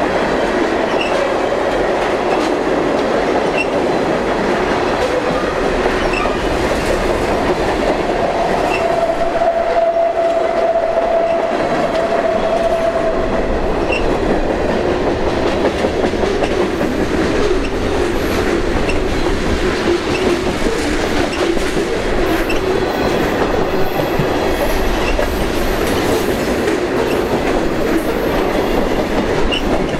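Freight cars of a long mixed train rolling past: a steady rumble and rattle of steel wheels on the rails, with clickety-clack at the rail joints. A thin steady whine rises out of it for a few seconds about a third of the way in.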